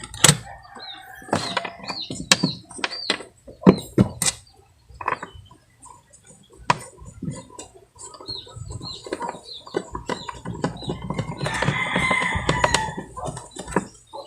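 Chickens clucking, with a rooster crowing once for about a second and a half near the end. Several sharp clicks and knocks come in the first few seconds.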